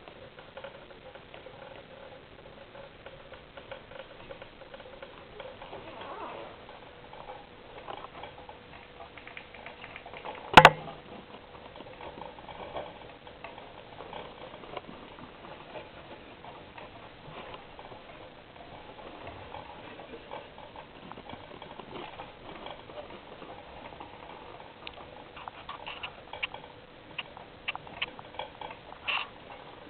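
Hamsters crunching and nibbling insects: a run of small irregular clicks and ticks, with one loud sharp knock about ten seconds in and a denser flurry of clicks near the end.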